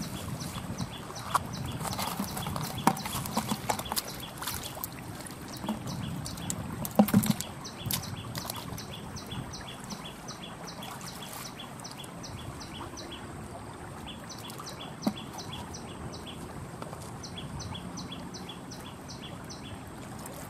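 Light splashing and knocks of hands working in shallow stream water during the first half, the loudest knock about seven seconds in. Throughout, short high chirps from a small animal repeat about three times a second in runs.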